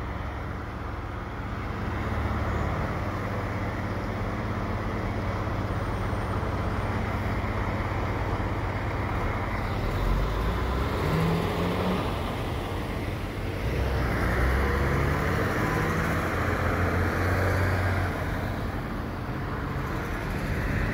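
Heavy diesel engines of a snowblower and dump trucks running, a steady low rumble that grows louder for a few seconds past the middle.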